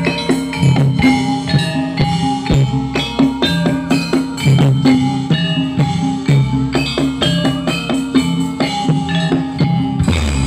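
Live Javanese jathilan dance music: drums and struck, ringing tuned percussion playing a steady, fast, repeating rhythm.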